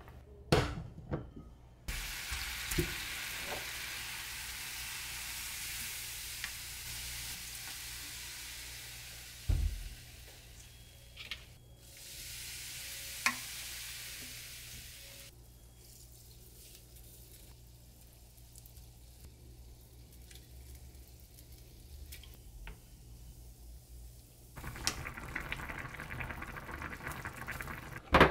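Food sizzling in a hot frying pan in three stretches of steady hiss that stop and start, with scattered clicks and knocks of cooking utensils.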